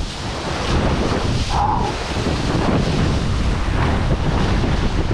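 Strong wind buffeting the microphone over water rushing past the hulls of an Extreme 40 racing catamaran under sail, a steady loud roar of noise. A short tone is heard about a second and a half in.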